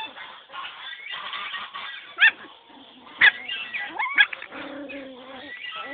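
Puppies yelping with three short, sharp, rising squeals as they play-fight.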